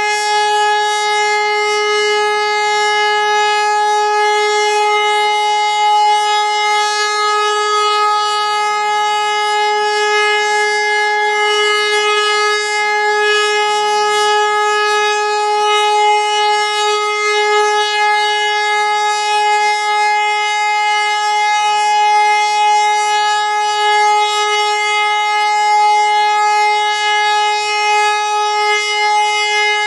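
HLS 573 high-performance civil-defence siren sounding one steady, unbroken tone with strong overtones, holding its pitch with no rise or fall. This is the Austrian 'Warnung' (warning) signal, a continuous tone of three minutes, sounded as a siren test.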